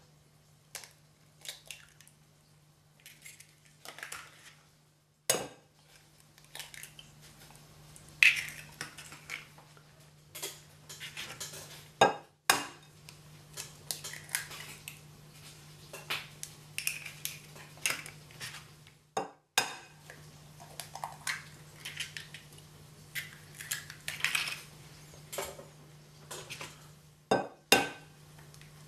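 Raw eggs being cracked one after another into a glass bowl: sharp taps and clinks against the glass, the crackle of shell being pulled apart, and eggs dropping into the bowl, with a few louder knocks among them.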